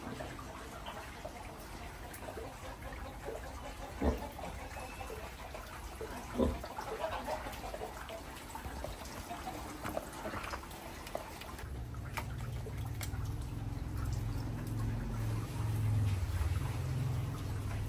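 Water trickling and dripping around a flooded yard after heavy rain, with two dull knocks a couple of seconds apart in the first half and a low rumble building up in the last third.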